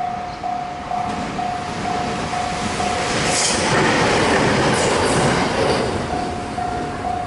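Japanese level-crossing warning bell ringing about twice a second as a train passes over the crossing. The train's rumble rises and is loudest in the middle, nearly drowning the bell, then falls away.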